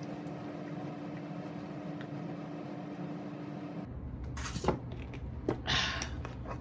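Steady room hum. About four seconds in, the background changes abruptly, and then come a few knocks and a short scraping rustle of tableware being handled: a plate and cutlery moved on the table after the meal.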